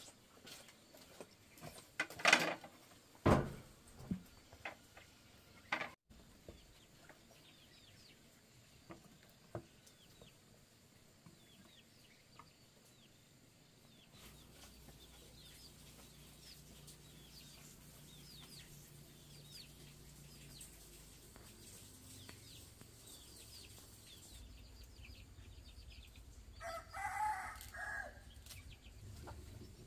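A rooster crows once near the end, a pitched call of about a second and a half, over faint, rapid high chirping. Two sharp knocks a few seconds in are the loudest sounds.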